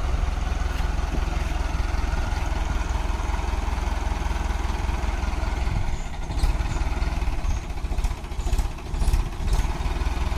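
Tractor's diesel engine running steadily as it pulls a cultivator and a rotavator through soil. From about six seconds in the sound grows uneven, rising and falling, with scattered clattering knocks.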